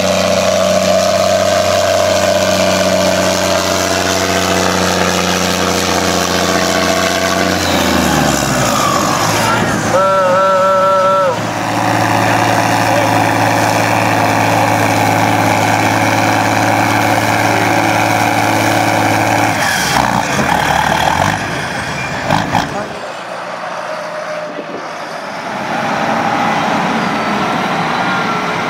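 Tractor diesel engines running at full load while pulling a weight-transfer sled, first a Case IH 1455 and then a Fendt. A short wavering high horn-like tone sounds about ten seconds in, and near the end the engine noise drops lower.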